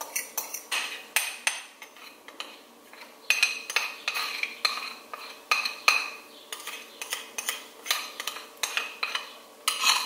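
A metal utensil scraping and knocking around a small metal bowl, a few strokes a second, as melted chocolate and butter is scraped out of it. Each knock rings briefly.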